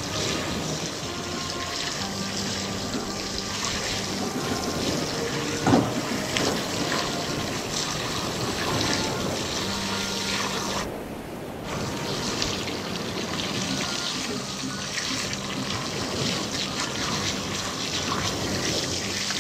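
Running fresh water splashing and trickling steadily, the stream the manatees are drinking from; it breaks off for about a second roughly eleven seconds in. A single sharp knock near six seconds is the loudest moment.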